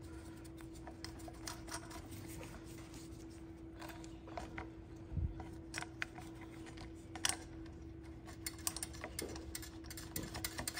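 Faint clicks and taps of small nuts being started by hand onto the carburetor mounting studs and of gloved hands handling the plastic air intake, denser near the end, over a faint steady hum.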